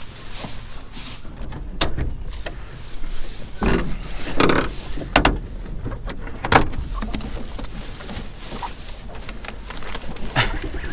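Wooden pop door on a corrugated-metal chicken trailer being unlatched and swung open: a series of knocks, clacks and scrapes of wood against the metal siding, loudest around the middle.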